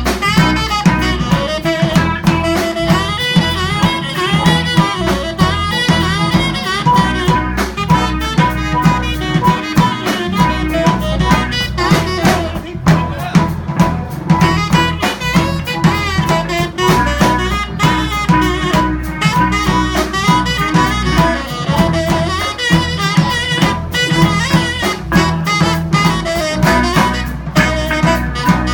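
Live small band playing jazz-blues: a saxophone plays the lead line over a drum kit and bass, with harmonica alongside.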